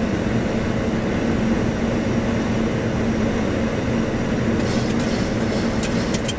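Airliner cabin noise on a night approach: a steady rumble of engines and rushing air with a low steady hum, and a few light clicks about two-thirds of the way in.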